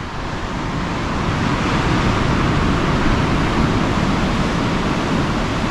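Ocean surf breaking on rocks below: a steady rushing wash that swells over the first couple of seconds and then holds.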